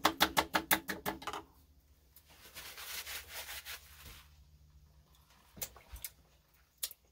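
Utensil stirring homemade barbecue sauce in a pot, clicking against the side about six times a second and stopping about a second in. A soft hiss follows for about two seconds, then a few light clicks near the end.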